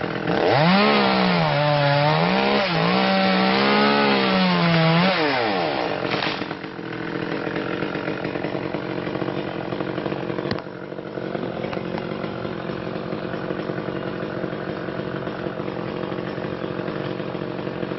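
Chainsaw revving up and down for about six seconds, then settling into a steadier, quieter run.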